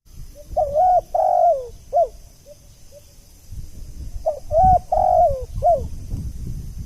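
Spotted dove (tekukur) cooing: two phrases of several rounded coo notes, about three seconds apart, with a few soft short notes between them. This is the kind of call used to lure wild spotted doves.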